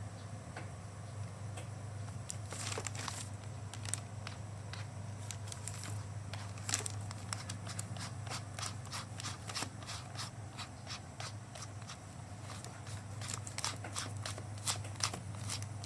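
Irregular clicks, taps and crinkles of things being handled, over a steady low hum.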